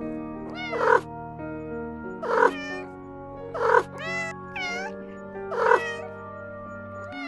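A cat meowing over and over, a call about every second and a half, with a higher pair of calls in the middle, over steady background music.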